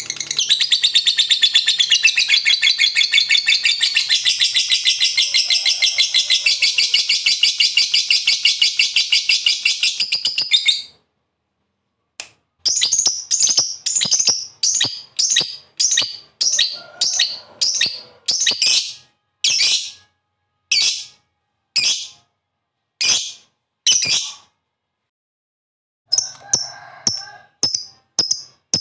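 Lovebird singing its long 'ngekek' chatter: a rapid, unbroken, high-pitched trill for about eleven seconds that cuts off abruptly. After a short pause come separate sharp chirps, about two a second at first, then slowing to about one a second. More chirps follow another brief pause near the end.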